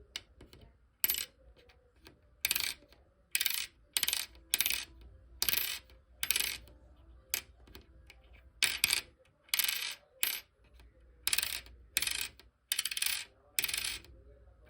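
Pennies dropped over and over onto a hard surface, each landing with a short, high-pitched ringing ping, well over a dozen drops. This is a sound test for composition: a bright ping is read as a sign of brass, while copper gives a duller sound.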